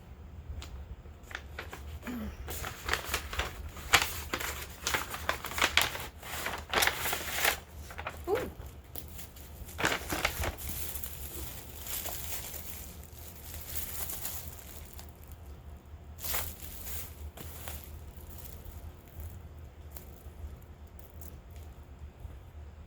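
Packaging crinkling and rustling as it is handled and unwrapped, in crackly bursts that are densest through the first two-thirds and sparser near the end.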